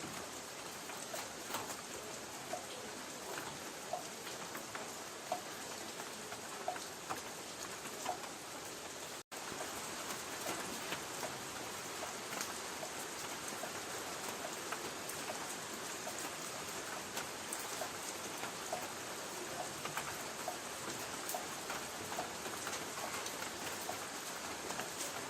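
Light rain on a tin roof: a steady hiss with scattered drops ticking on the metal. The sound cuts out for an instant about nine seconds in.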